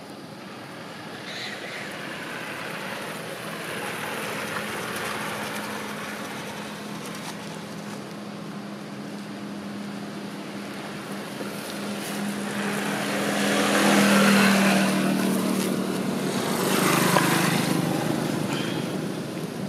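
Motor vehicles passing on a road: engine hum and tyre noise swelling and fading, with two louder passes in the second half, the first the longer.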